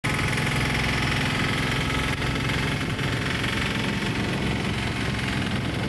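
An engine running steadily, with a steady hiss above it.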